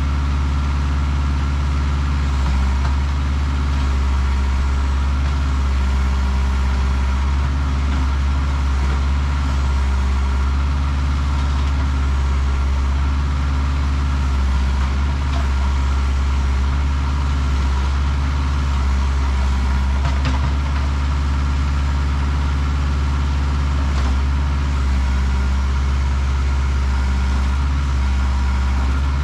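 Kubota L48 tractor loader backhoe's diesel engine idling steadily, running after a hydraulic leak repair so the new seal, O-ring and coupler can be checked for leaks.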